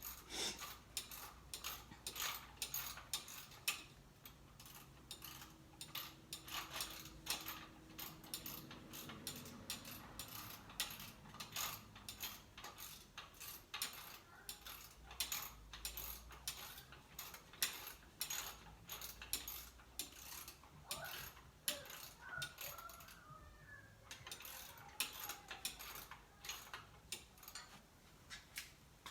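Hand socket ratchet clicking in quick runs of strokes as the EGR valve's mounting bolts are tightened.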